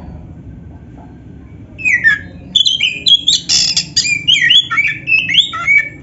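Black-breasted oriental magpie-robin (kacer) singing: after a quiet start, a fast, varied run of whistled glides and harsh scratchy notes begins about two seconds in and carries on almost to the end.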